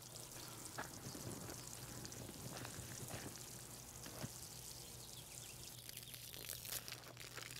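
Faint steady hiss with a low hum and a few soft ticks: quiet outdoor background.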